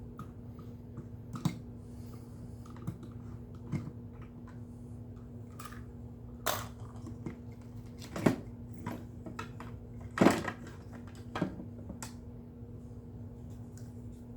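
Irregular clicks and knocks of a Hoover WindTunnel vacuum's plastic housing and screws being handled while it is taken apart, the loudest two knocks in the second half, over a steady low hum.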